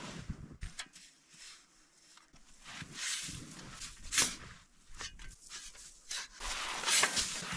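Shovel digging into coarse, granular corn snow: irregular scraping and crunching strokes.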